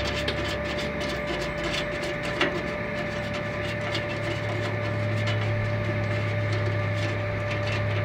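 Many small irregular clicks and light scraping from the original cam latch of an RV compartment door being worked loose by hand, over a steady low hum from some running machine.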